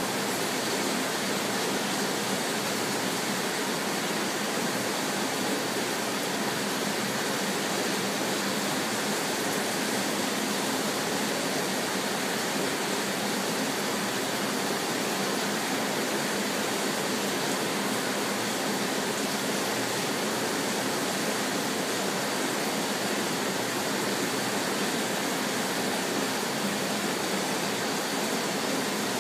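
Steady rushing of water circulating in a marine aquarium, an even noise that does not change.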